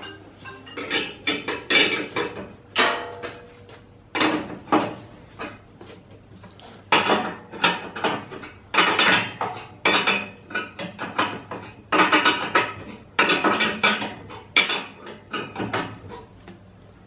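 Ratchet wrench clicking and clinking in short irregular runs as the nuts are worked up the all-thread rods to lift the milling machine's ram.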